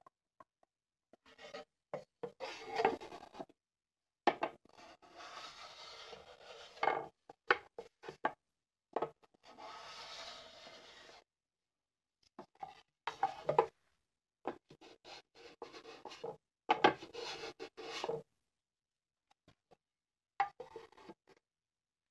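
Small Japanese wooden hand plane shaving the rim of a wooden base in several separate strokes, each a dry scraping hiss, with short knocks and clicks between strokes.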